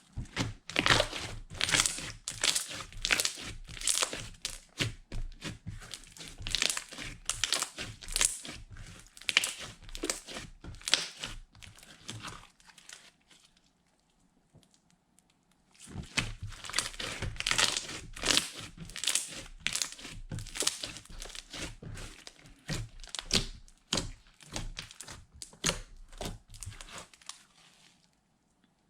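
Slime being squished and kneaded by hand, giving a dense run of crackling, popping clicks. It goes in two spells of about twelve seconds each, with a pause of a few seconds between them.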